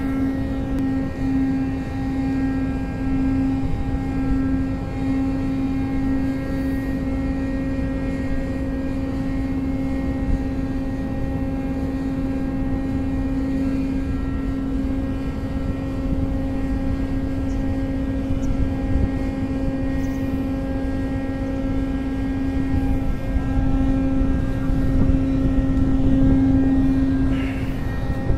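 Ship's deck crane machinery running steadily with a constant droning hum as it hoists and swings a clamshell grab of bulk cargo, a little louder near the end.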